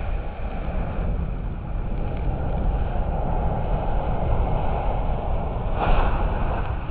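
Matchstick-head jet thrusters on a cardboard model truck burning with a steady rush of flame. The flame swells into a brief louder flare about six seconds in.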